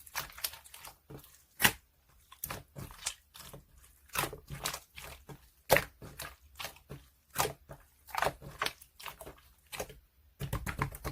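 Slime being kneaded and pressed by hand for a marbling swirl, giving irregular sticky crackles and clicks, with a denser stretch of squishing near the end.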